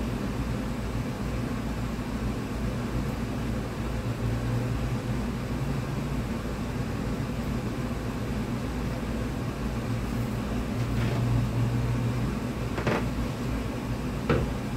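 Steady low mechanical hum and hiss of a running fan, with a few faint ticks near the end.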